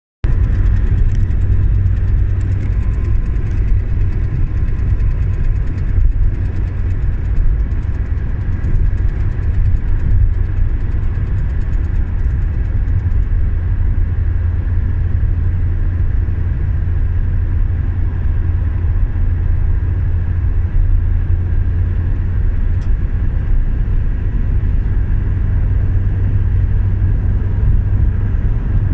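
Renault Clio II 1.5 dCi four-cylinder turbodiesel running steadily with a strong low hum. A faint fast ticking runs over it until about halfway through. The owner presents this as an abnormal noise from the car.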